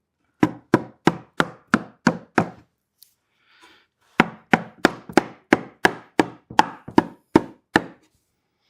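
Cedar hive-box boards being tapped together at their dovetail joints: a run of about seven quick wooden knocks, a short pause, then about eleven more at roughly three a second.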